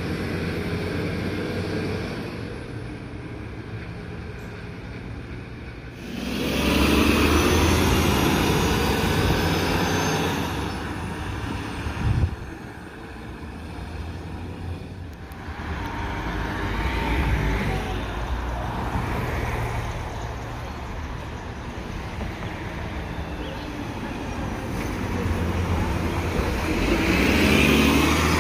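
City transit buses and road traffic going by: engines running with tyre and road noise that swells as vehicles pass close, including a bus pulling in alongside near the end. The level changes suddenly a couple of times, and there is a short thump about midway.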